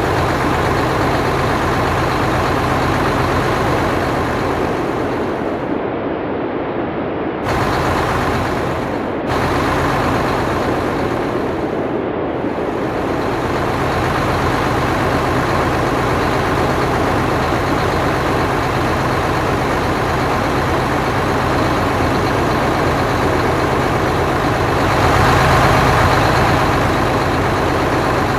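Sound-effect locomotive engine running steadily with a low hum, changing abruptly a few times where the effect is cut.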